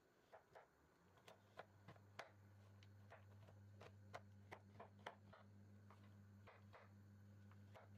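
Faint, irregular taps of a kitchen knife chopping a chocolate bar into small pieces on a wooden cutting board. A low steady hum comes in about a second in and holds.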